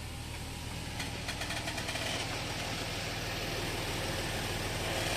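Audi A6 C6 engine idling steadily.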